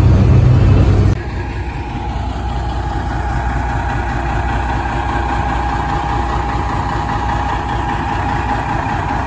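Diesel semi truck's engine running as the truck pulls a box trailer slowly past. A loud, deep rumble in the first second drops to a steady engine sound with a held mid-pitched tone, which cuts off suddenly at the end.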